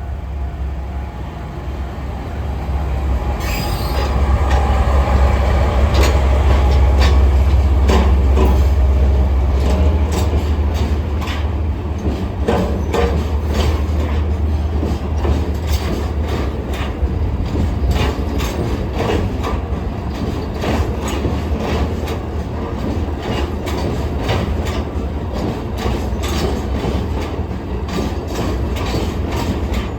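Diesel-hauled freight train passing over a level crossing. A deep engine rumble swells a few seconds in and is loudest for several seconds, followed by a long run of wheel clacks and knocks over the rail joints as the wagons roll by.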